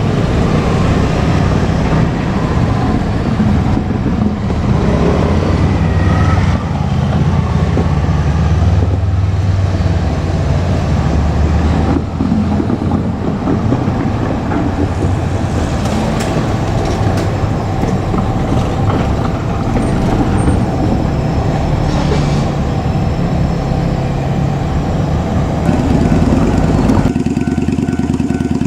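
KiHa 47 diesel railcar running on the track, its diesel engines loud and steady with rail clatter, then settling to a steady engine sound near the end.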